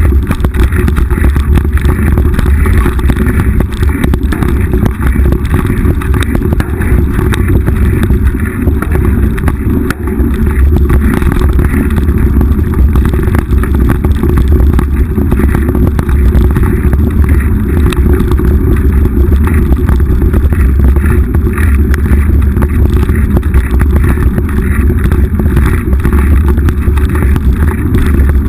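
A mountain bike running down a rough dirt single track, heard through a GoPro riding along. It makes a loud, steady rumble of wind buffeting and tyre noise, with constant rattling and clicking from the bike over the rough ground.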